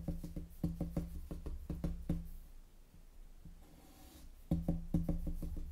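Felt-tip marker tapping dots onto paper on a wooden table, quick taps about five or six a second. The tapping stops for about two seconds in the middle and then starts again.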